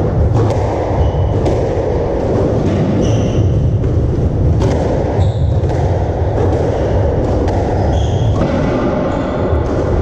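Squash ball being struck by rackets and smacking off the court walls during a rally, a series of irregular sharp knocks. Short squeaks of court shoes on the wooden floor come between them, over a steady low rumble.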